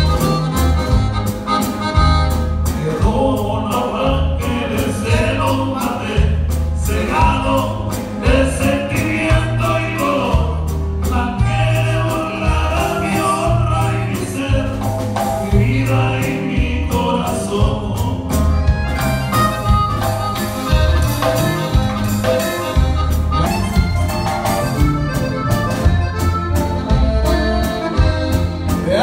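Live norteño band playing a song, with a lead vocal over it: drum kit and bass keep a steady beat under guitar and accordion.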